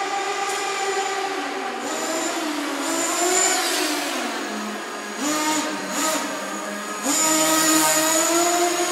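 Kyosho Fazer FXX radio-controlled car's small nitro engine revving up and down as it drives, its pitch rising and falling. It drops to a lower, steadier note in the middle, then opens up louder about seven seconds in. The engine echoes around an underground car park.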